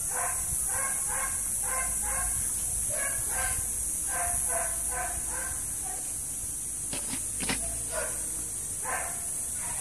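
Short animal calls repeating about three times a second, pausing after about five seconds and coming once more near the end. Two sharp knocks come about seven seconds in, over a steady high-pitched hiss.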